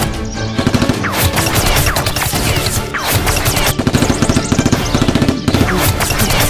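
Rapid-fire gunshot sound effects, machine-gun style bursts laid over toy Nerf blasters, with background music underneath.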